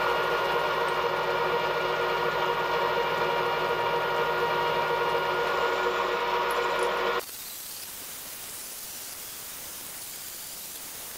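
Milling machine spindle running steadily with a whine while its end mill cuts metal, trimming the part to length. About seven seconds in it cuts off abruptly to a much quieter, steady hiss.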